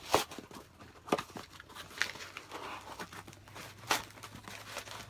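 Protective packing wrap being pulled open and crinkled by hand, an irregular rustling with several sharp crackles and tears.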